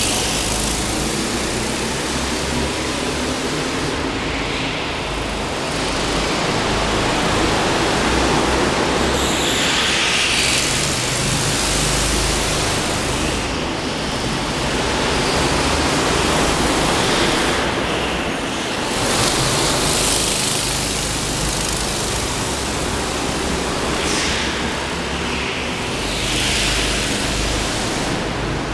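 Go-kart engines running around an indoor track, a steady noisy din that swells several times as karts come past and falls away again.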